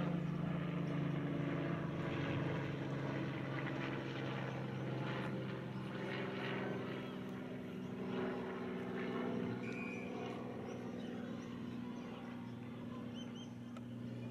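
A steady engine drone, a low hum with its overtones held at one pitch, easing slightly toward the end.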